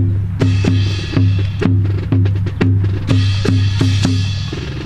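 Marching drum cadence on snare and bass drum, a steady beat of about two strikes a second.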